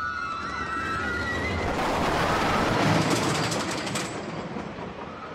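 Roller-coaster sound effect: a train on its track rushing past with a building rumble and fast clattering, loudest about three seconds in, then easing off. A few wavering high tones sound over the first second or so.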